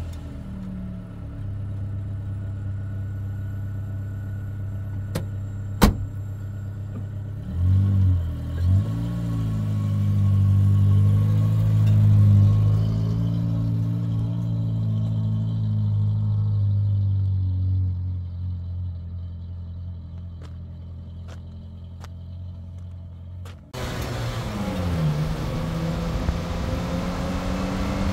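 A pickup truck's engine runs as it drives along a dirt road, with a steady low hum and a brief rise and change in the engine note about eight seconds in. There is a single sharp click about six seconds in. Near the end the engine sound cuts off abruptly and a different steady noise with a sliding tone takes over.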